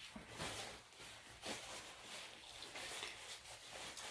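Faint, close-miked chewing and mouth sounds of someone eating, with irregular small clicks and smacks and a slightly louder one about one and a half seconds in.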